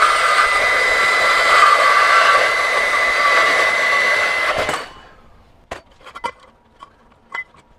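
Makita GBP01 40V brushless cordless band saw, fitted with an 18-tooth blade, cutting through 1/8-inch steel rectangular tube: a steady whine over a grinding hiss. The cut finishes and the saw stops about five seconds in, followed by a few light knocks and clicks of handling.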